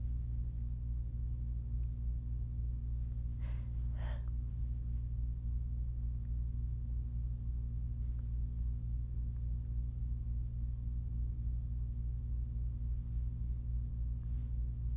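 A person's two short breaths in quick succession about three and a half seconds in, after a sneeze, over a steady low hum.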